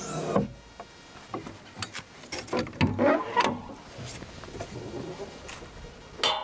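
Engine cover and side access panel of a Bobcat E55 mini excavator being opened by hand, the engine off: a burst of noise as the cover lifts, scattered latch clicks and knocks, and a sharp clunk near the end as the side panel comes open.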